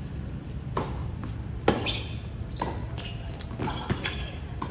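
Tennis ball being hit back and forth in a doubles rally: sharp pops of racket on ball, about one a second, the loudest about two seconds in. A steady low hum runs underneath.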